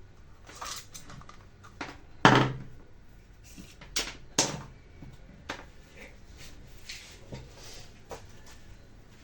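Scattered clicks and knocks of tools and small parts being handled and set down on a workbench. The loudest knock comes a little over two seconds in, with a few more about two seconds later.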